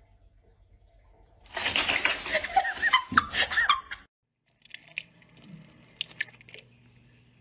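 A loud, wavering vocal sound lasting about two and a half seconds, its pitch rising and falling. After a brief silence, a kitchen faucet runs a thin trickle of water, with small drips and splashes.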